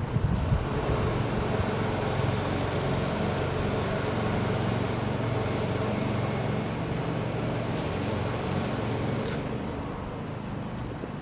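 Steady rumble of road traffic with an engine hum underneath, easing slightly near the end, and one short click about nine seconds in.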